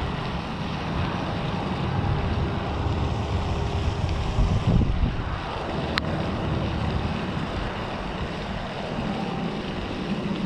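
Wind buffeting the microphone, a fluctuating low rumble over a steady rushing hiss, with one sharp click about six seconds in.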